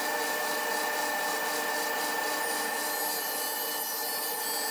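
Table saw ripping the edge off a cedar fence picket: a steady motor-and-blade whine with the noise of the blade cutting through the wood.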